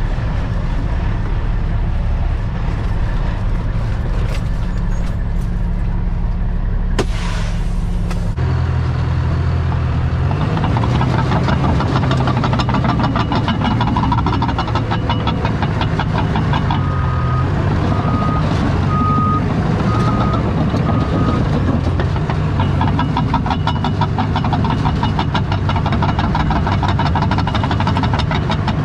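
Kenworth T800's Cat C15 diesel running steadily, heard from inside the cab. About eight seconds in it gives way to a Cat D3 bulldozer's diesel engine running with a fast clatter. Near the middle of that stretch, a few short beeps sound at one pitch.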